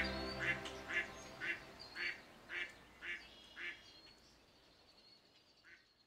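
A duck quacking in a regular series, about two quacks a second, growing fainter, with a couple more quacks near the end. Background music fades out just as the quacking begins.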